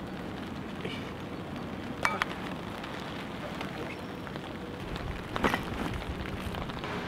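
Rummaging in a fabric backpack and handling small cans: short rustles and clinks, the two loudest about two seconds and five and a half seconds in, over a steady outdoor hiss.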